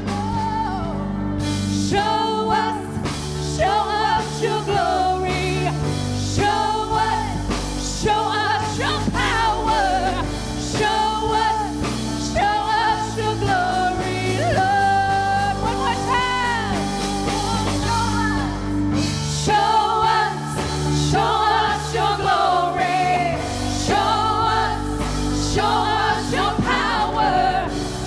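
Live worship band playing a slow gospel praise song with a singer holding long, wavering notes over sustained chords and a steady drum beat.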